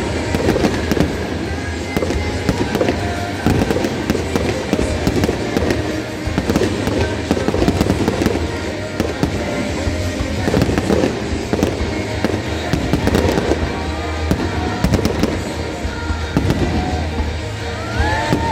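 Aerial fireworks bursting and crackling in a dense, continuous barrage of pops and booms, with music playing alongside.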